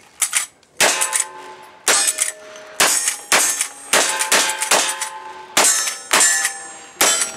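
Black-powder rifle shots fired in quick succession, about ten in seven seconds. Each is followed by the ringing clang of a steel target being hit.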